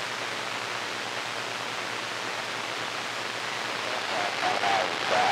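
CB radio receiver static: a steady hiss of band noise on an AM channel. A faint, wavering distant voice comes up through the noise about four seconds in.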